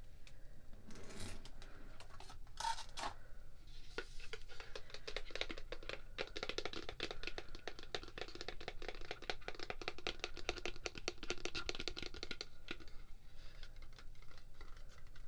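Long fingernails tapping and scratching rapidly on a small white cardboard jewelry box, a dense run of fine clicks from about four seconds in until near the end, after a few scattered handling sounds.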